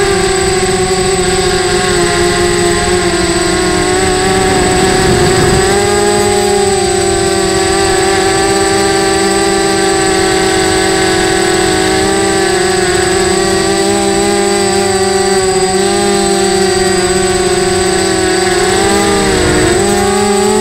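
Mini quadcopter's motors and propellers heard from its own onboard camera: a loud, steady buzzing whine whose pitch dips and rises with the throttle, most clearly about five seconds in and again just before the end.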